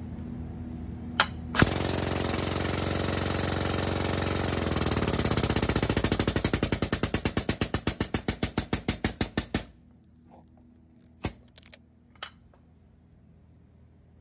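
Hydraulic crimper's pump running while crimping a ring terminal onto a heavy-gauge cable. It turns into a fast, even pulsing, about six a second, then cuts off suddenly. Sharp clicks come just before it starts and a few more after it stops.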